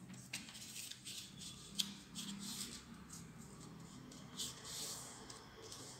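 Faint rustling and rubbing of origami paper as a sheet is folded to the centre line and the creases are pressed flat by hand, in several short swishes with a sharp tick about two seconds in.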